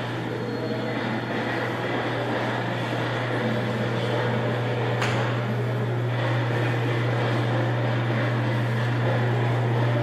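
A steady low hum under a constant wash of indoor background noise, with a single sharp click about five seconds in.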